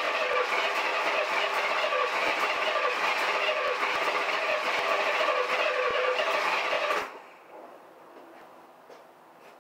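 1983 Chevrolet S10's 2.8 V6 running with a rod knock on cylinder #1, the knock heard as sharp ticks in the engine noise. The engine noise cuts off abruptly about seven seconds in.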